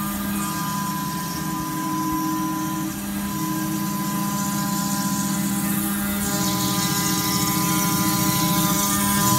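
CNC machine cutting Silestone quartz stone: a steady motor whine with several pitched tones, and a high hiss from the cut that grows louder in the second half.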